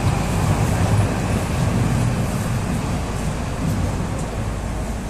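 Steady low rumble and hum inside an 81-760A "Oka" metro car standing at a station platform, easing slightly toward the end.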